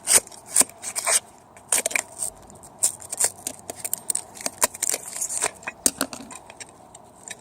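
Irregular clicks, clinks and short scrapes of metal hand tools and a small burnt-out speaker being handled as it is worked open.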